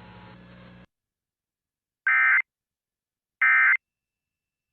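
Emergency Alert System End of Message signal: the SAME digital data header, heard as two short, harsh, identical electronic bursts about a second and a half apart after the broadcast audio falls silent, signalling the end of the alert.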